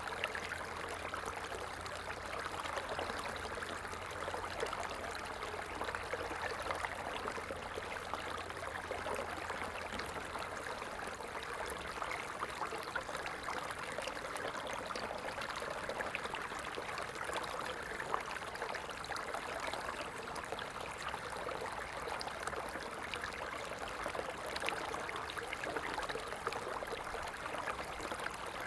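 Stream flowing steadily, an even rush of running water with scattered small ticks.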